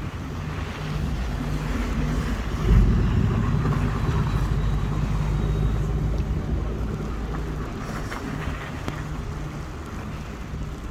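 A motor vehicle passing on the street. Its low rumble swells suddenly about three seconds in and then fades slowly.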